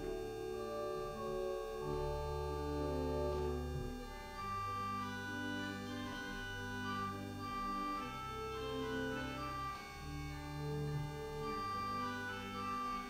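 Church organ played slowly: sustained chords over deep held bass notes that change every second or two.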